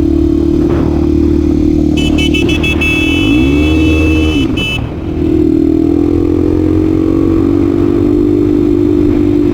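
Honda Tornado 250 single-cylinder four-stroke motorcycle engine running under way at steady revs; about halfway through the revs rise and fall back with a short drop in loudness. Meanwhile a high beeping tone sounds in a few quick pulses, then holds for about three seconds.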